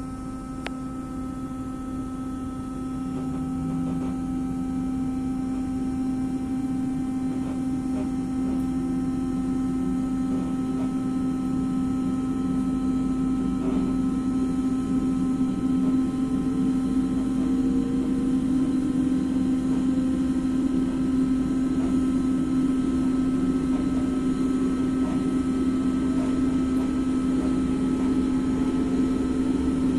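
Inside an ALe642 electric multiple unit pulling away and gathering speed. A steady electrical hum is heard, with a fainter motor whine that rises slowly in pitch. The running noise grows louder over the first several seconds and then holds steady.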